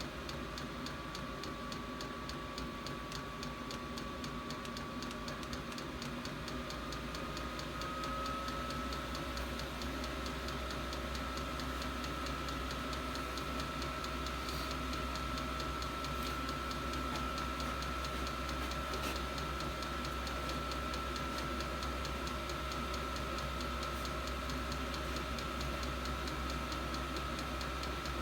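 An 8 kW 12 V all-in-one diesel air heater running, its blower fan giving a steady whine that rises a little in pitch about seven seconds in and then holds. Under it is a regular ticking from the heater's fuel dosing pump.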